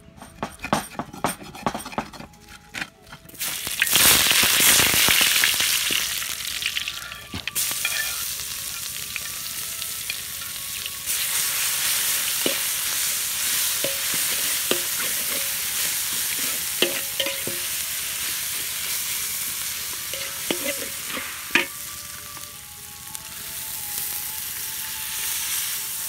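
A stone pestle knocks against a mortar for the first few seconds. Then spice paste hits hot oil in a wok about three and a half seconds in and sizzles loudly, stirred with a metal spatula that clinks and scrapes now and then. Near the end the sizzle eases as coconut milk goes in.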